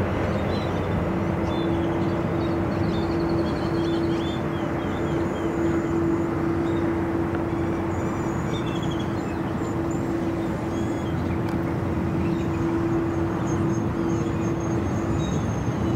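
Steady jet engine noise of an Airbus A330 airliner taxiing at low power, with an even hum running through it. Faint bird chirps sound a few times over it.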